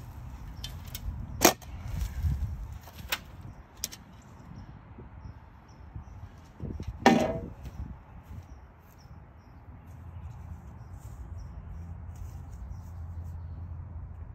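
Yard-work knocks as sod and grass clumps are pulled and thrown while clearing a bed: a few sharp knocks in the first four seconds, then a louder clatter with a brief ringing tone about seven seconds in. A steady low rumble fills the later part.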